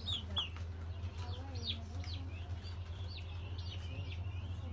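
A brood of guinea fowl keets peeping: many short, high chirps, scattered at first and thickening into a continuous chatter near the end, over a steady low hum.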